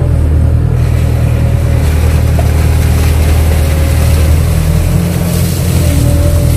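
Diesel engine of a KATO crawler excavator running steadily under load, a constant low drone. A rushing hiss joins it about a second in as the machine works.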